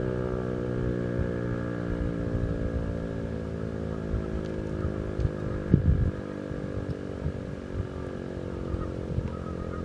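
ASC T-128 warning siren winding down after its test, its many-pitched tone falling slowly and fading away. Under it, an irregular low rumble, loudest about six seconds in.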